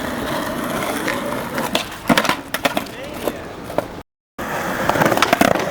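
Skateboard rolling on concrete, with several sharp clacks of the board's tail and wheels hitting the ground as a trick is tried, then more clacks near the end. The sound cuts out completely for a moment about four seconds in.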